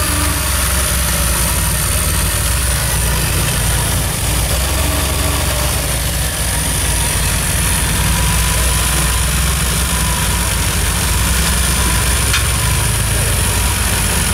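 DeLorean DMC-12's PRV V6 idling steadily, warmed up and running in closed loop while its fuel-air mixture is being adjusted.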